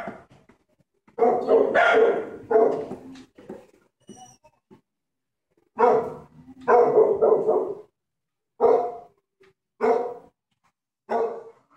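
A dog barking repeatedly: two runs of several quick barks, then single barks every second or so near the end.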